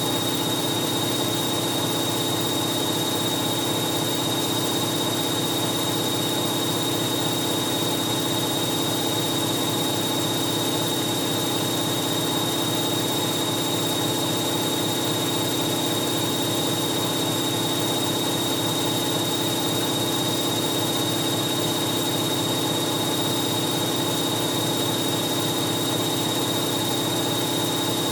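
Hoover 1100 De Luxe washing machine running steadily in its final spin, a constant motor hum with a thin high whine, with no change in speed.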